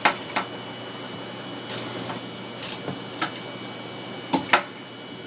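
Short sharp plastic clicks and knocks from a small electric pump and its pipe fitting being handled and seated in a plastic sump box, about seven in all, with a loud pair at the start and another close pair near the end.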